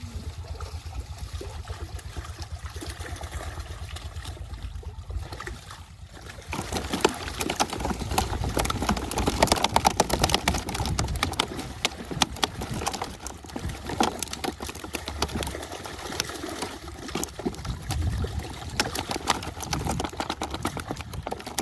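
Water splashing, first low and steady, then from about six seconds in a busy run of quick small splashes and slaps as netted pond fish thrash in the shallow water.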